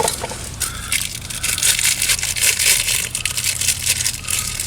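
Dense crackling and rustling with many quick clicks, from plastic being handled during reassembly of a car's shifter console trim.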